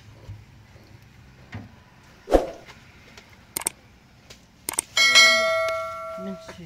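A few knocks and clicks of tableware being handled, then a sharp clink about five seconds in that rings on for over a second as it fades: glass tea cups knocking together on a plastic tray.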